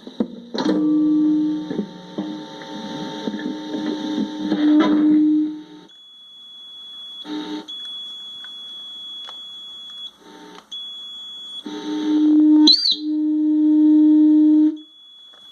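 Electronic pedal giving off a loud, steady low tone with a high whine above it. The low tone cuts out partway, leaving the thin high whine, which breaks off briefly a few times. Near the end the low tone returns with a short rising chirp: a fault in the pedal's electronics, as the owner suspects.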